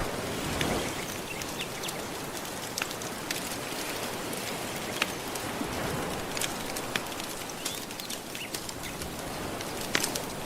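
Crackling wood fire with irregular sharp pops and snaps over a steady wash of gentle surf.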